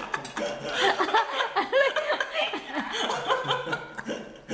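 Several people chuckling and laughing, mixed with bits of talk.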